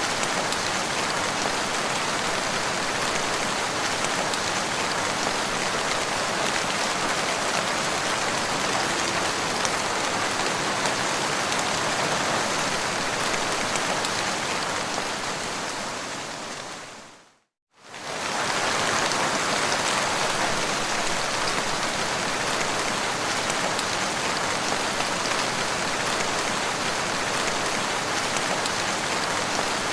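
Steady, dense rain falling and pattering on a surface. A little past halfway it fades out to silence for a moment and comes back in.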